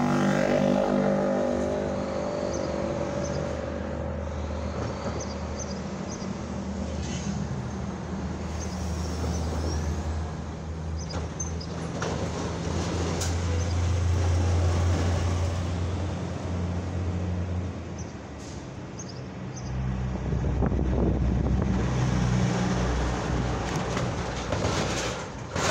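Road traffic: diesel semi trucks driving past one after another, their engines running, loudest about halfway through and again near the end.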